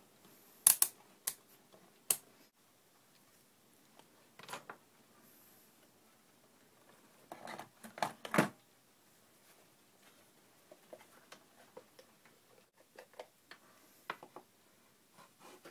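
Handling noise of test gear and a small metal instrument box on a workbench. A few sharp clicks about a second in are the loudest, then a short clatter about halfway through as the box is picked up and turned, then scattered light taps and ticks.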